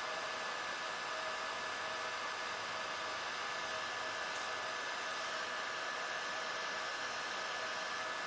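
Hot air gun running steadily: an even rush of blown air with a faint steady whine from its fan motor, heating old car paint until it blisters.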